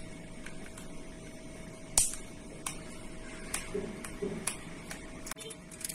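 Small clicks and taps of a thin tool prying at the plastic end cap of a small cylindrical Bluetooth speaker. One sharp click comes about two seconds in, with fainter scattered clicks around it.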